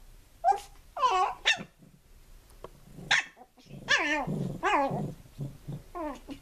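Small dogs at play: a string of short, high-pitched yipping barks, about seven in all, with growling mixed in around the middle.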